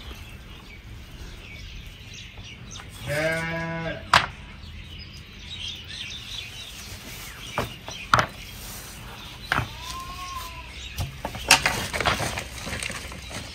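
Sheep bleating twice: one long bleat about three seconds in, then a shorter, fainter one about ten seconds in. A few sharp clicks and knocks fall in between.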